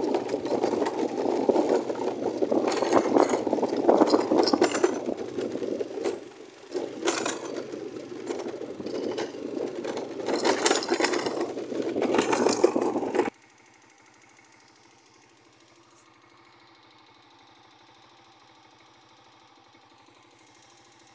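Small motorcycle engine running while being ridden on a dirt track, with rough wind noise on the microphone, dipping briefly about six seconds in. About thirteen seconds in, the sound drops abruptly to a faint steady hum.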